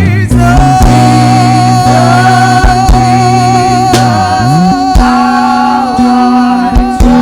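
Live gospel worship music: a singer holds one long note with vibrato over sustained keyboard and bass chords, with drum hits about once a second.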